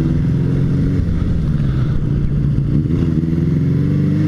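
Motorcycle engine running while riding, holding a steady note, then rising in pitch about three seconds in as it accelerates.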